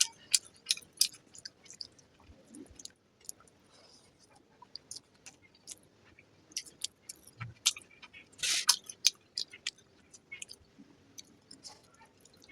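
Close-miked chewing of veg fried rice and egg curry: wet mouth sounds with many sharp little lip and tongue smacks, and a longer, louder smack about two-thirds of the way through.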